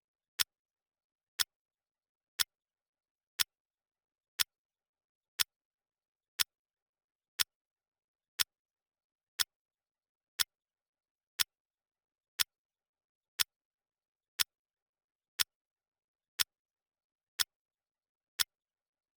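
Clock-ticking sound effect of a countdown timer: one sharp tick every second, nineteen in all, with silence between.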